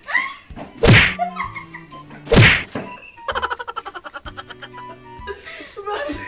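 Two loud slaps about a second and a half apart, as faces are smacked into piles of flour. They are followed by about two seconds of a fast, stuttering, pitched sound effect over music.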